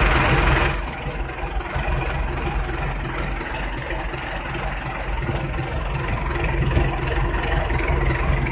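Tractor engine running steadily while it pulls a single-row root-crop harvester.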